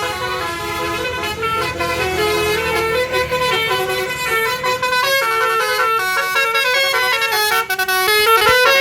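Tour bus's Basuri 'telolet' musical air horn playing a tune of quick, stepped notes that change pitch several times a second.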